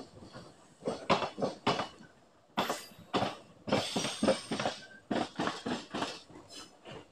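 Train wheels clattering and clanking over rail joints and points, a run of irregular metallic knocks with a denser burst of clatter about four seconds in.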